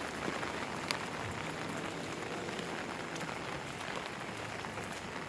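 Steady rain falling, an even hiss with a few sharp drop ticks, one about a second in.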